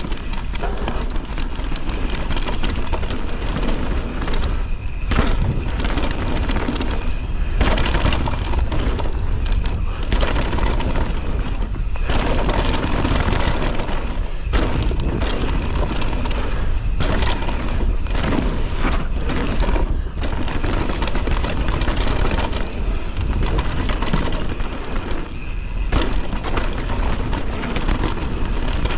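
Canyon Torque full-suspension mountain bike riding down a downhill trail at speed. Wind rumbles on the camera's microphone, the tyres crunch over dirt and stones, and the bike rattles and clatters over bumps.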